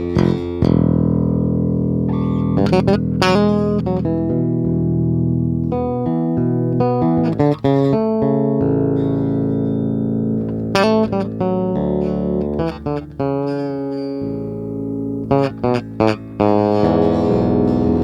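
A Chris Larkin Reacter B5 bass guitar being played: low notes and chords left to ring, broken a few times by quick runs of sharply plucked notes.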